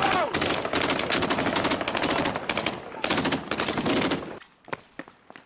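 Dense, rapid automatic gunfire from several weapons at once, a continuous battle barrage that cuts off abruptly about four seconds in, leaving a few faint clicks.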